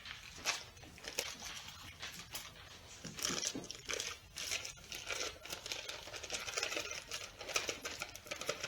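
Packages of cream cheese being unwrapped: the wrappers crinkle and tear in a long run of quick, irregular rustles.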